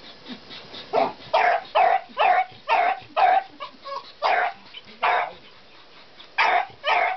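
Beagle barking repeatedly in short, sharp barks: a quick run of about six barks starting a second in, then slower single barks, a pause, and two final barks close together.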